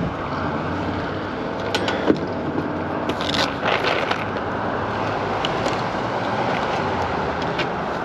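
Outdoor condenser fan of a ductless mini split heat pump running steadily while the compressor fails to start. A few short knocks and rustles of a tool bag being handled come at about two, three and four seconds in.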